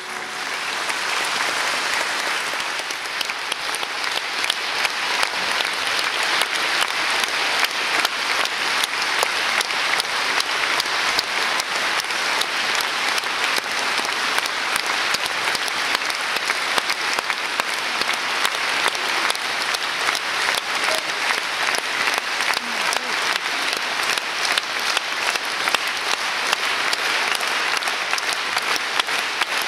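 Large theatre audience applauding at a curtain call: a dense, steady patter of many hands clapping, swelling in the first couple of seconds and then holding level.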